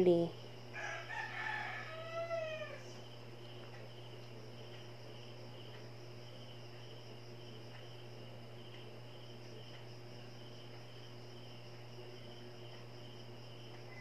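A single animal call lasting about two seconds, starting just under a second in, its pitch falling at the end. Under it runs a steady high-pitched chirring and a low hum.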